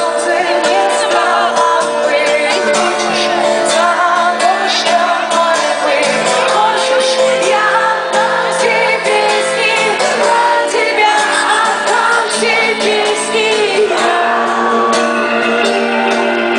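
Live rock music with a singer's voice over the band, playing steadily without a break.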